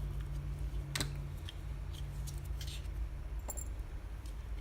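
Small plastic parts of a crushed remote microphone's casing being handled and fitted together: one sharp click about a second in, then a few faint ticks and a light metallic tap, over a steady low hum that stops a little after three seconds.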